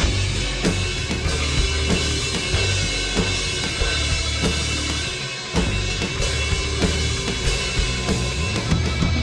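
Live heavy rock band playing an instrumental passage, with a steady drum beat under bass and guitar; the low end drops out briefly about five and a half seconds in before the band comes back in with a hit.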